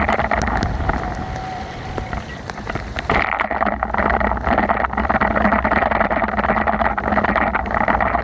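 Wind rumbling on the microphone of a camera on a moving bicycle, over a steady hiss of riding on a rain-soaked road, with scattered sharp ticks.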